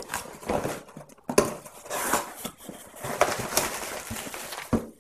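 Cardboard shipping box handled and opened by hand: irregular scraping and rustling of the cardboard flaps, with a few sharp knocks against a stone countertop, the sharpest near the end.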